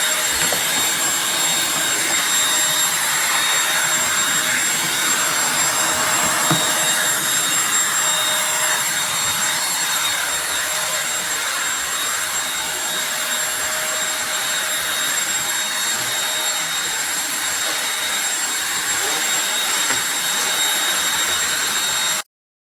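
Eureka Blaze cordless stick vacuum running steadily: a rushing air hiss with a steady high whine from the motor. It cuts off abruptly near the end.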